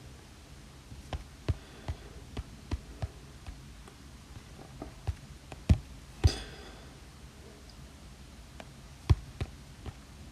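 Stylus tip tapping on an iPad Pro's glass screen while drawing: irregular sharp taps, a dozen or so in the first six seconds, one with a brief ringing tail, then a pause before a few more taps near the end.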